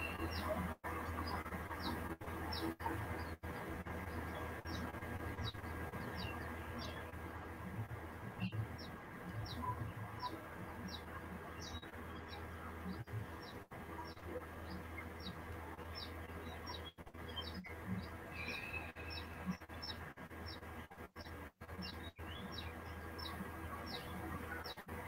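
A small bird chirping over and over: short, high chirps at an even pace of about one and a half a second, over a steady low hum.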